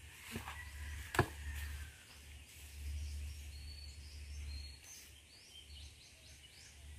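Outdoor ambience: a low rumble of wind on the microphone, two sharp knocks in the first second or so, and small birds chirping faintly and high in the middle.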